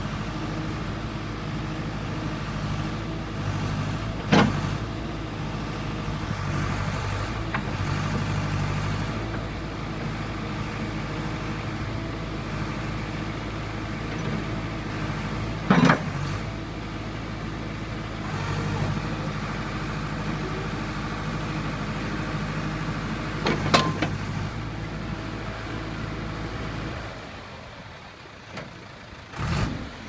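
John Deere 310D backhoe loader's diesel engine running steadily as the backhoe is worked, with three sharp clanks about four, sixteen and twenty-four seconds in. Near the end the engine note drops away.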